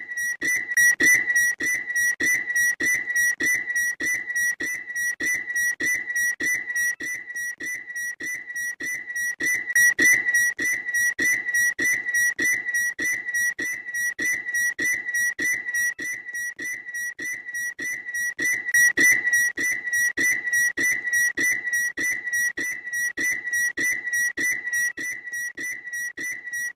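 A bird's loud call repeated without pause: one high note pulsing about two to three times a second, swelling louder about every nine seconds.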